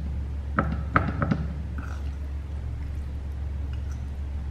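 A metal fork clinks and scrapes against a ceramic bowl several times, about half a second to a second and a half in, over a steady low hum.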